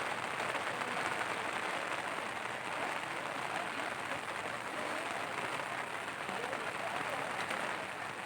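Steady hiss of rain falling, with faint voices of people in the background.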